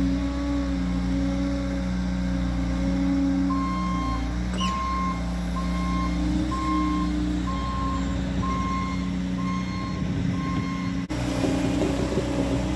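Bobcat T66 compact track loader's diesel engine running steadily. From about a third of the way in, its backup alarm beeps about three times every two seconds as the machine reverses.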